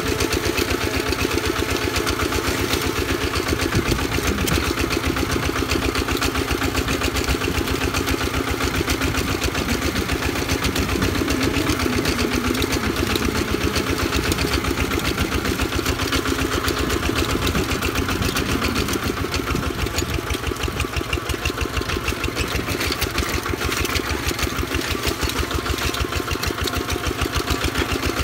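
Two-wheel walking tractor's single-cylinder diesel engine running steadily under load while it pulls a plough, with a fast, even chugging that does not let up.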